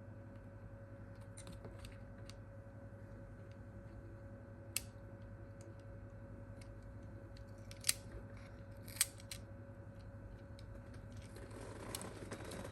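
A few short, sharp clicks and taps from small tools and phone parts being handled during a smartphone screen repair, over a steady low electrical hum.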